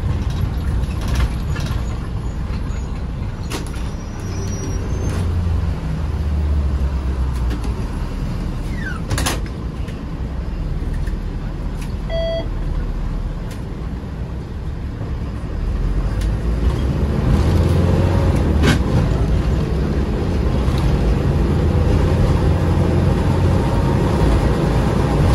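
Toyota Coaster minibus on the move, its diesel engine running with a steady low rumble and occasional sharp knocks and rattles. A short electronic beep comes about twelve seconds in, and the engine grows louder from about sixteen seconds as the bus pulls harder.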